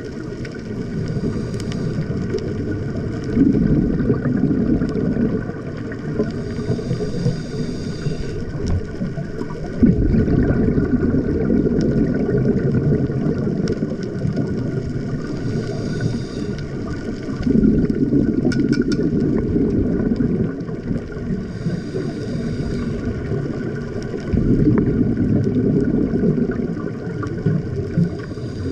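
A scuba diver breathing through a regulator underwater: four breath cycles, each a short hissing inhale followed by a longer low, bubbling exhale, about every six to seven seconds.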